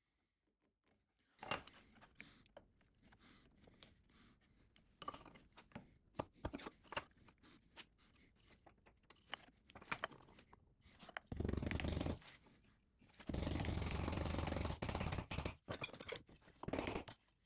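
Woodworking on birch plywood dovetail joints: a run of scattered taps and knocks, then two longer bursts of steady noise lasting a second or two each and a shorter one near the end.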